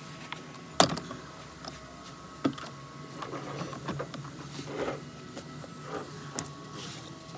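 Handling of a car's plastic interior trim and floor mat beside the centre console: scattered sharp clicks and knocks with rustling, the loudest knock about a second in.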